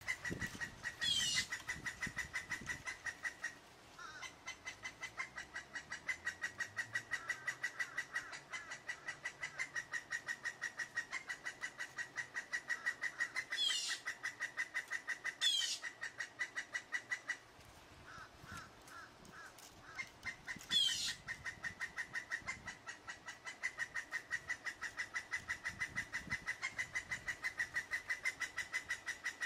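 Male woodpecker calling insistently: a long, steady run of short, sharp notes, about five a second, with a brief pause and a quieter stretch partway through. A few short, high sweeping notes cut in now and then.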